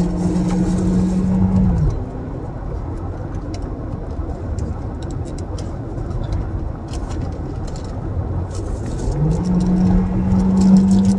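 Low rumble of a car with a steady motor hum running in it. The hum winds down and stops about two seconds in, then winds back up about nine seconds in. Between them come a few light clicks of a plastic salad container being handled.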